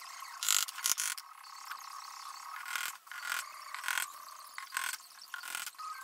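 Hammer blows driving nails into the corners of a pine hive box: a series of irregular sharp strikes, the two loudest about half a second and a second in. A faint steady high hum lies beneath.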